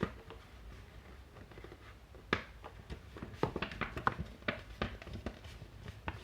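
Thick paper being folded and creased by hand: scattered crinkles and light taps, one sharp crackle a little over two seconds in and a run of them in the second half.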